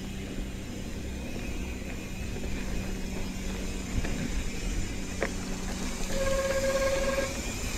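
Mountain bike rolling down a sandy dirt singletrack: a steady low rumble of the tyres over the dirt, with one sharp knock about five seconds in. Soon after comes a brief, steady squeal of the brakes lasting about a second, heard as the bike slows for a turn.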